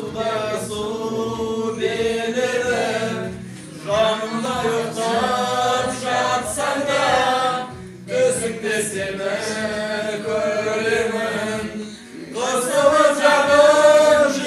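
A group of men and women singing a Kazakh song together at the table, unaccompanied, in long held phrases with brief pauses for breath every four seconds or so.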